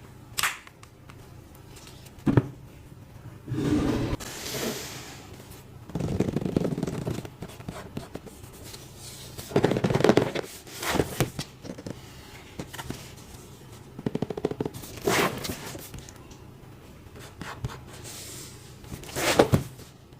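Prize figure packaging being handled and opened by hand: irregular bouts of rustling and scraping, with a few sharp knocks.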